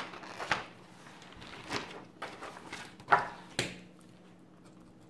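Paper rustling as a page of a spiral-bound notepad is flipped over and a hand slides across the fresh sheet: a series of short swishes, the loudest about three seconds in.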